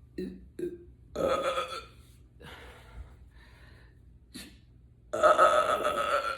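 A woman burping twice: a shorter belch about a second in, then a longer, louder one near the end.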